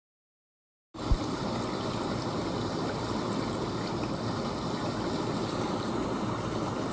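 A steady rushing noise like running water starts abruptly out of dead silence about a second in, with a brief low thump as it begins.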